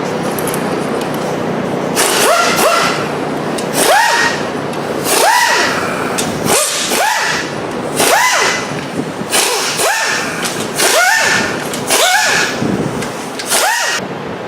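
A small power tool's motor spinning up in short, repeated trigger pulls, each a quick rising whine, about a dozen of them roughly once a second starting about two seconds in.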